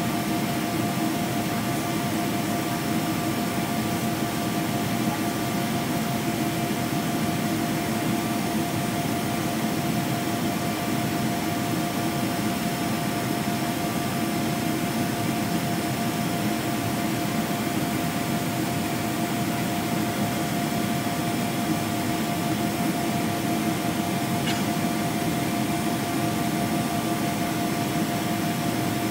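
Steady in-flight cabin noise of a Boeing 777-300ER: an even rush of engine and airflow noise, with a few faint steady tones underneath.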